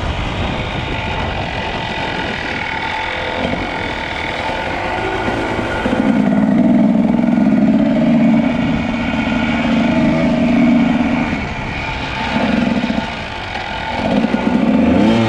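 2001 Kawasaki KDX220's two-stroke single-cylinder engine running under changing throttle while riding: steady at first, then pulling harder and louder for several seconds midway, easing off, and given shorter bursts of throttle near the end.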